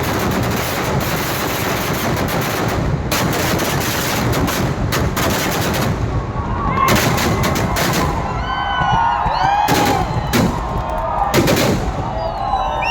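Fireworks display: a dense, continuous barrage of rapid explosions for about six seconds, thinning to a few single loud bangs in the second half, with whistles rising and falling among them.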